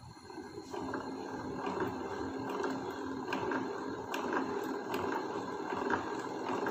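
Hand-cranked benchtop centrifuge being spun up: a steady whirring of its gears and spinning tube head that builds about a second in, with a light click repeating a little faster than once a second as the crank turns.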